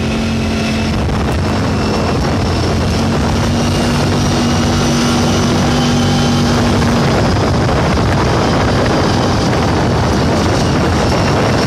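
A vehicle's engine runs steadily while driving along a dirt track, with wind noise on the microphone. Its held note fades about seven seconds in.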